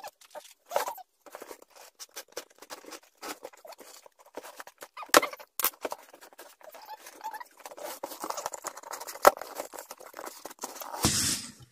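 Cardboard box being handled and opened by hand: scratchy rustling and scraping of cardboard with scattered clicks, sharp taps about five and nine seconds in, and a louder burst of rustling near the end as the lid comes open.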